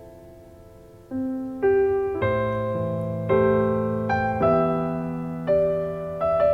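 Electric piano playing a slow introduction: sustained chords struck about once a second, each fading away before the next.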